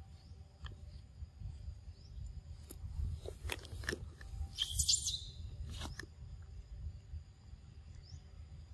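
Young macaque eating a piece of ripe mango held out by hand, with scattered short clicks of biting and mouthing, and a brief loud rustle about halfway through. Faint short chirps in the background.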